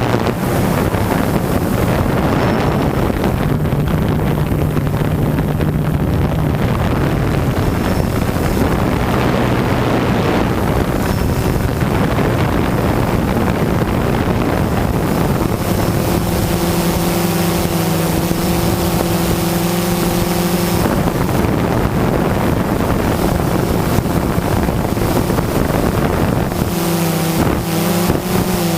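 DJI Phantom 2 quadcopter's motors and propellers buzzing in flight, heard through heavy wind noise on the microphone. A steady hum with overtones comes in about halfway through, fades out for a few seconds and returns near the end.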